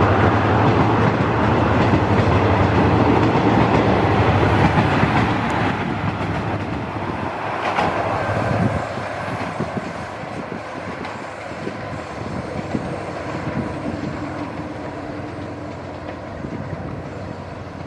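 Passenger train coaches rolling past on a curve: a steady rumble with wheels clicking over the rail joints, loud for the first few seconds and then fading as the train pulls away.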